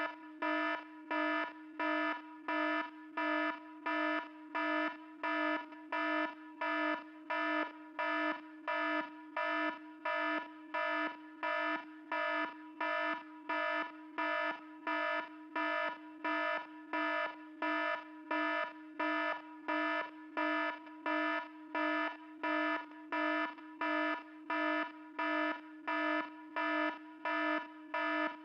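iPhone warning alarm tone: a steady string of identical buzzy electronic beeps, a little more than one a second, each with a low note and several higher overtones.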